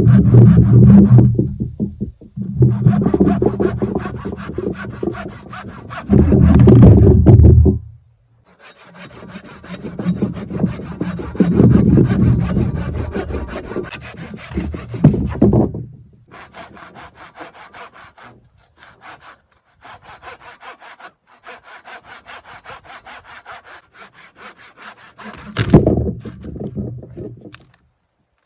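Hand saw cutting through a log in runs of rapid back-and-forth strokes with short pauses between them. The strokes grow lighter and more spaced after about halfway, and there is one more loud run near the end.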